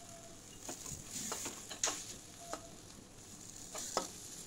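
Metal spatula scraping and tapping against an aluminium kadai as a thick spice paste is stirred, a handful of separate scrapes and knocks with a brief metallic ring. A faint sizzle of the masala frying in oil runs underneath.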